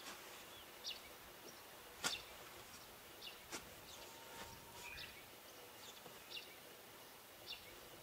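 Quiet outdoor background with a small bird giving short high chirps every second or so, and a few sharp taps, the loudest about two seconds in.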